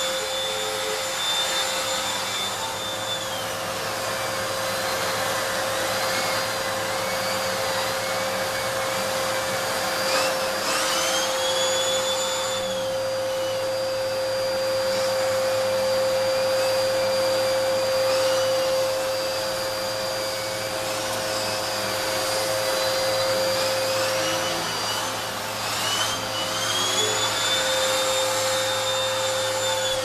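Vax Zoom Pet upright vacuum cleaner with an 1800 W motor running, its brush roll working on carpet. It makes a steady whine that wavers as it is pushed back and forth, and its pitch rises twice: about ten seconds in and again near the end.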